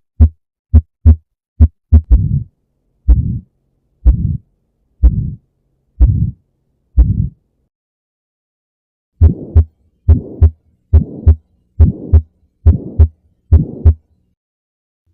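Stethoscope recordings of heart sounds, in several examples one after another. First a crisp normal lub-dub at a little over one beat a second. From about two seconds in, each beat is followed by a low murmur. After a pause of about a second and a half, lub-dub pairs return with a higher, noisier murmur filling the gap between them.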